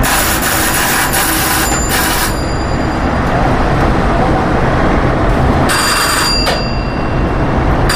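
A bell ringing in short bursts: near the start, about two seconds in, and again around six seconds in. Underneath is the steady low rumble of the steamship's machinery during slow docking manoeuvres.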